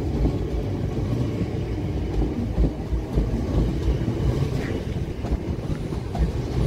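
Class 455 and 456 electric multiple units moving past along the platform: a steady rumble of wheels on rail and traction motors.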